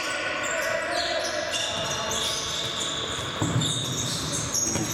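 Futsal play in a sports hall: players' shoes squeaking on the court floor in many short, high squeals, with a thud of the ball being struck about three and a half seconds in and another near the end.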